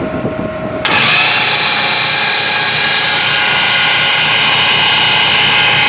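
Angle-grinder-powered homemade electric outboard motor switched on about a second in, then running steadily at half throttle: a loud, even electric-motor whine over a rushing noise.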